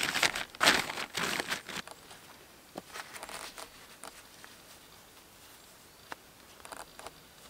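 Black plastic sheeting crinkling and rustling as a hand smooths it over, for about the first two seconds. Then it goes much quieter, with a few faint rubs and small snaps of long rubber gloves being pulled on.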